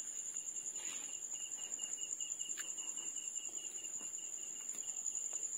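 Crickets trilling steadily: a high-pitched, fast-pulsing trill with a second, lower and fainter pulsing trill under it. A few faint clicks are heard.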